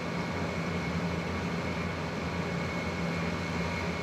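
Steady low background hum with a faint high whine, unchanging throughout.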